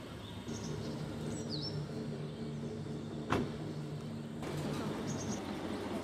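Steady low hum of an engine running nearby, cutting off about four and a half seconds in, with a few faint, high, thin bird chirps and a single sharp click a little after three seconds.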